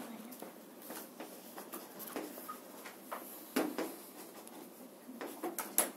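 Chalk on a blackboard while words are written: a scatter of light scrapes and short taps, with sharper taps about three and a half seconds in and near the end.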